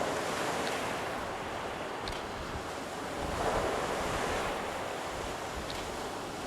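Waves washing up on a beach under strong wind that buffets the microphone, a steady rush of noise that swells louder about three and a half seconds in.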